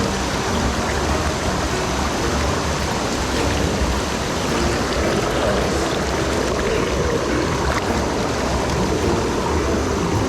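Steady rushing of falling water from a waterfall, an even roar with no breaks.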